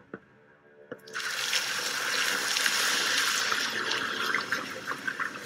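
Sound effect of liquid running from a tap into a container after a short click about a second in, tapering off near the end: a spray gun being filled with potion.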